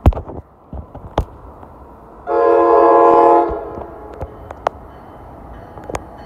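NJ Transit Multilevel commuter train's horn sounding one blast of a little over a second, several notes together, as the train approaches.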